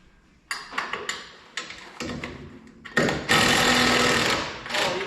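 A few clanks of metal tools and parts, then a power tool rattling loudly for about two seconds while loosening bolts.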